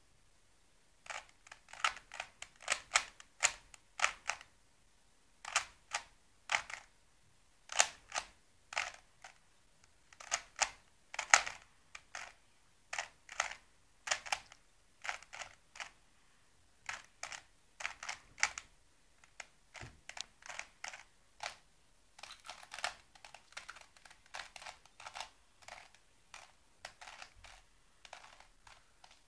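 Plastic Rubik's Cube being turned by hand: quick runs of clicking turns, broken by short pauses, as its layers are rotated during a solve.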